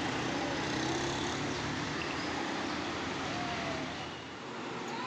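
A bus engine running, with road noise, fading away about four seconds in. A short rising-and-falling meow-like call comes right at the end.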